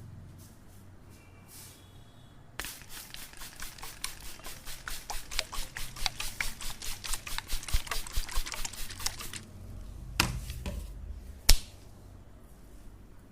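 Hands tapping rapidly in a percussive massage, about six sharp strokes a second for roughly seven seconds, getting louder as it goes. Two sharper single slaps or cracks follow, the second the loudest.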